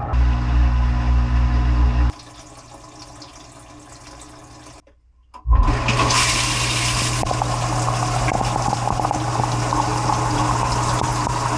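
Dishwasher wash pump running and spraying water around the tub, heard from inside. The pump stops about two seconds in, then restarts near the middle with a strong rush of spray that runs on steadily.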